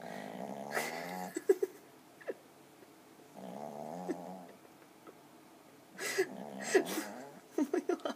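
A chubby dog snoring in its sleep: three long rattling snores about three seconds apart, each followed by a few short sharp snorts.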